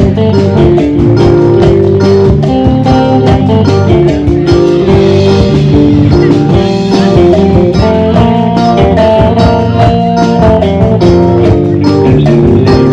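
Live Khmer band playing an instrumental passage with no singing: a guitar carries the melody over bass and a steady drum beat.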